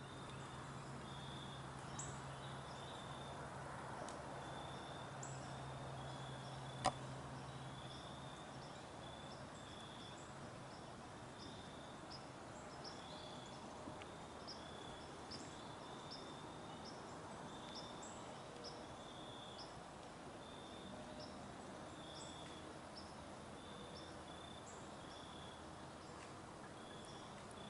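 Quiet woodland ambience: faint, short high-pitched chirps repeat irregularly throughout, with one sharp click about seven seconds in and a faint low hum over the first several seconds.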